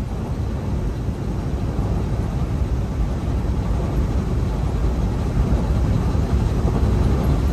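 Steady low rumble of a semi-truck's engine and tyres on the road, heard from inside the cab while driving.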